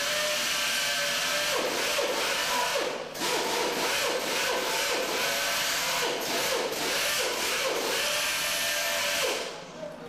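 Handheld electric grinder working a stone slab: a steady motor whine under loud grinding noise, the motor's pitch dipping again and again as the tool is pressed onto the stone. It stops near the end.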